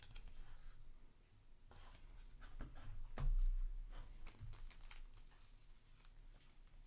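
Trading cards and their plastic wrapping being handled: faint rustling, crinkling and small clicks, with a dull bump about three seconds in.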